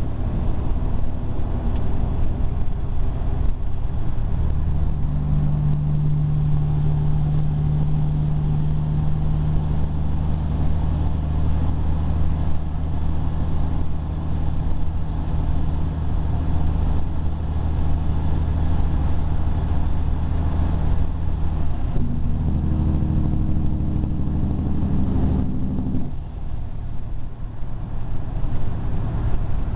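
Vehicle engine and exhaust heard from inside the cab at highway speed: a steady, low drone over road noise. The drone's pitch shifts up about 22 seconds in, and it drops away a few seconds later.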